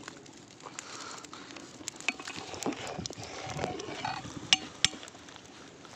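A metal ladle scraping and knocking against a large cooking pot as biryani is stirred, with irregular clinks, the two sharpest about four and a half and five seconds in.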